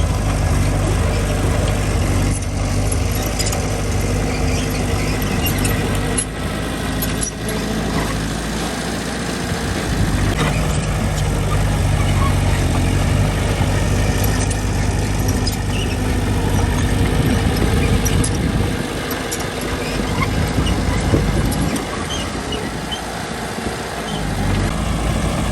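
Diesel engine of a Mitsubishi mini bulldozer running under working load. Its low note drops back twice, about a third of the way in and again near the end, with scattered clicks and knocks throughout.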